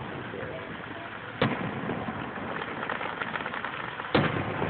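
Two fireworks bangs about three seconds apart, with faint crackling between them, heard through a phone's microphone.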